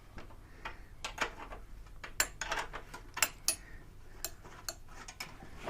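Irregular light metallic clicks and clinks of hand tools and loose bike parts being handled, with no steady rhythm.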